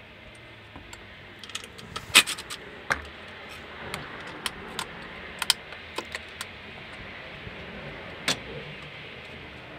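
Loose steel bolts clinking against a metal parts tray: a scatter of about a dozen sharp clicks and clinks over a few seconds, then one more near the end.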